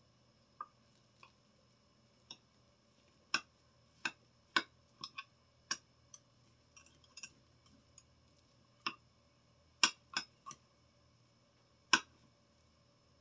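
A knife blade tapping and clicking against the bottom of a glass baking dish as a piece of meatloaf is cut out: about a dozen sharp, irregular clicks, the loudest about four seconds in, about ten seconds in and near the end.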